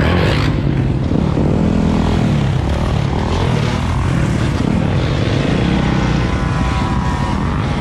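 Several dirt bike engines running and revving up and down as the group rides along, under a heavy rush of wind on the microphone.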